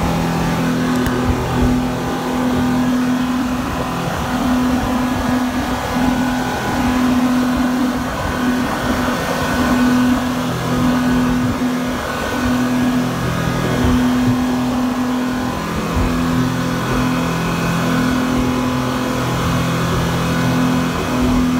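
A speedboat's 250 hp outboard motor running steadily at cruising speed, an even engine drone with wind rumble and the hiss of water rushing past.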